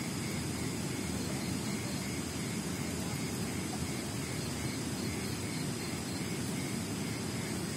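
Steady rushing of a river, an even low noise without breaks, with a faint chirp repeating about twice a second over it.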